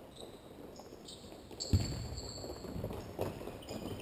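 Futsal ball struck hard on an indoor court, one sharp knock a little under halfway through, followed by softer thuds of play and short high squeaks of shoes on the court floor.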